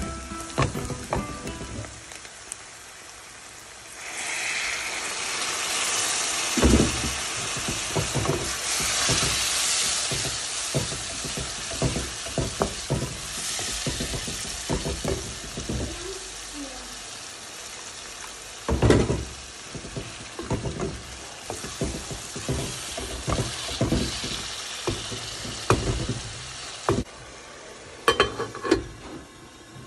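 Onion-and-spice masala sizzling in a hot aluminium pan. About four seconds in, water poured in raises a loud hiss that slowly dies down, while a wooden spatula knocks and scrapes against the pan. Near the end a metal lid is set on with a few sharp clicks.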